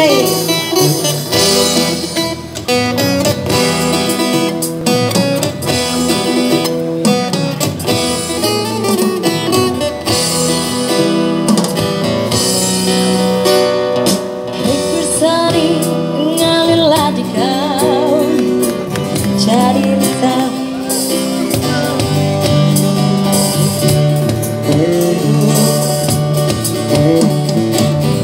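Live band music: a woman singing into a microphone over acoustic guitar and keyboard, amplified through a PA system.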